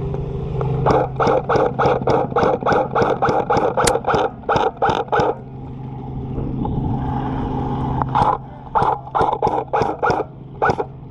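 Airsoft gunfire in two long strings of quick, evenly spaced shots, about four a second, over a steady low hum.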